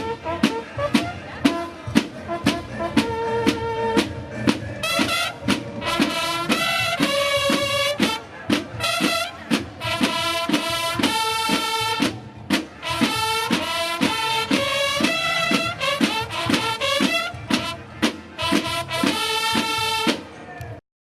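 Music played by brass instruments over a steady drum beat. It stops abruptly near the end.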